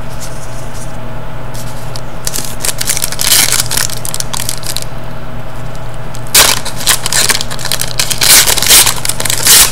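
Foil wrapper of a hockey card pack crinkling and tearing as it is opened and handled, in irregular bursts that get louder from about six seconds in. A steady low hum runs underneath.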